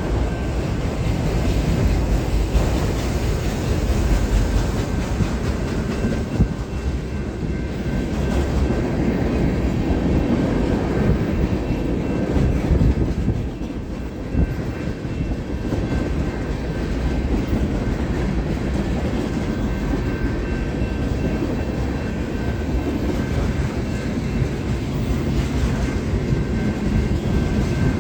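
Freight cars of a long CSX mixed freight rolling past, a continuous heavy rumble that dips briefly about halfway through, with a faint high ringing tone running through it.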